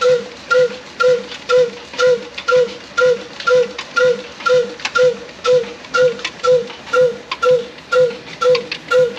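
Old single-cylinder 'black' desi diesel engine running steadily under load while it drives a stone flour mill. Its exhaust beats about twice a second, each beat with a short pitched note, over the mill's steady grinding noise.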